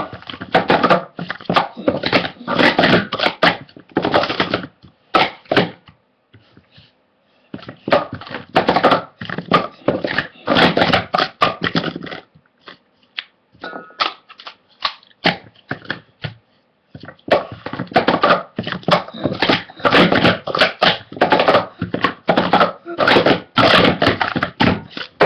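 Plastic sport-stacking cups being stacked and unstacked at speed: fast clattering of the cups knocking against each other and the mat, in several runs of a few seconds with brief pauses between.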